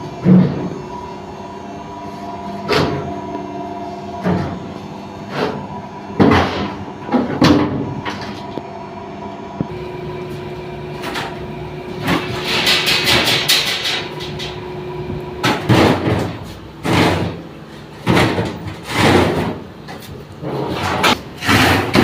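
Repeated knocks and clatters of washing-machine parts being handled during servicing, with a scraping stretch in the middle. A steady hum underneath stops about fifteen seconds in.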